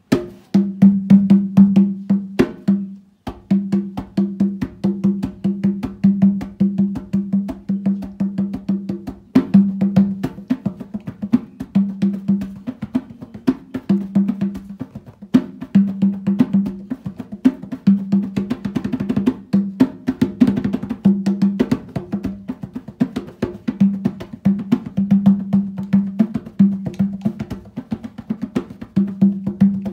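Skin-headed, rope-laced hand drum played with bare hands in a fast, steady rhythm of open ringing tones and sharp slaps, with a brief stop about three seconds in.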